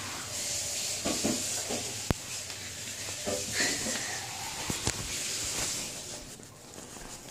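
A steady hiss with a few sharp knocks and rustles from a phone being moved about.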